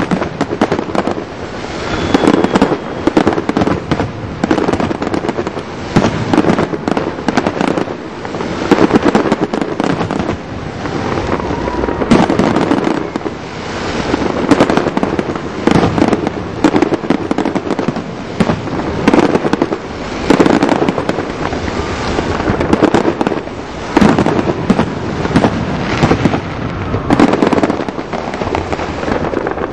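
Aerial fireworks display: a dense, unbroken run of loud booming bursts and crackles, several a second at the peaks.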